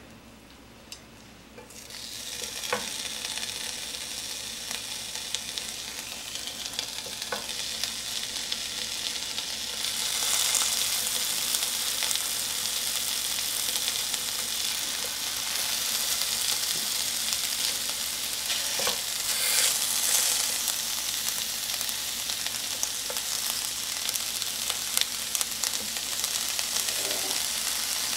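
Seasoned deodeok root strips sizzling in a dry frying pan over low heat. The hiss begins about two seconds in and grows louder about ten seconds in as more strips are laid down, with a few soft taps along the way.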